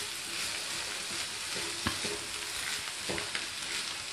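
Sliced carrots and capsicum sizzling in oil in a frying pan while being stirred with a spatula: a steady frying hiss with a few light scrapes and knocks of the spatula against the pan.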